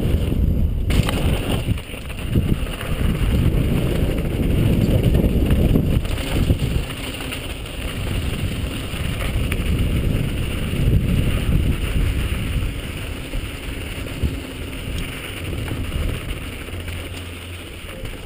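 Wind buffeting the microphone of a helmet-mounted camera, with mountain bike tyres rolling over a dusty dirt trail on a fast downhill run. The noise is strongest in the first half and eases off gradually as the bike slows.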